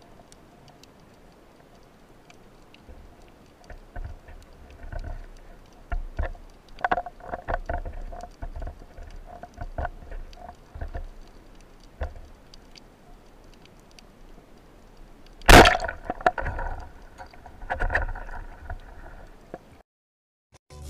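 Underwater sounds of a spearfisher in shallow water: scattered clicks and short calls made to lure a fish closer. About fifteen seconds in comes one loud sharp crack, the Comanche band speargun firing, followed by more short calls.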